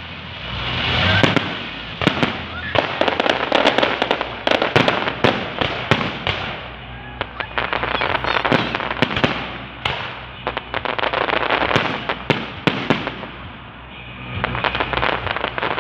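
Fireworks display: dense volleys of sharp bangs and crackling, easing off briefly a few times before picking up again.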